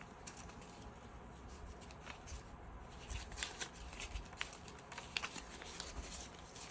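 Paper dollar bills rustling and flicking as they are counted by hand: faint, scattered crisp crackles, more frequent in the second half.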